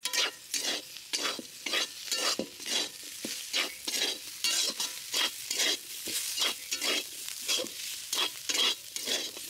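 A flat metal spatula scraping and tossing fried bitter gourd and potato slices around a metal kadhai, in quick repeated strokes about three a second.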